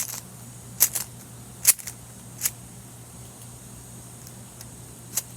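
Plastic Rubik's cube being turned by hand: a few sharp clicks of its layers snapping round in the first couple of seconds, then a pause and one more click near the end.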